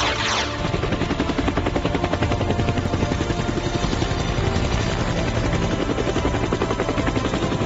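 Helicopter rotor chop sound effect: a fast, even beat that opens with a short falling whoosh.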